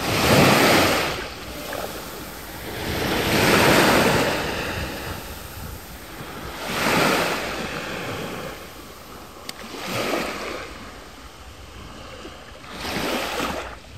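Small waves breaking and washing up a sandy beach, five swells in a row about three seconds apart, each rising and then fading.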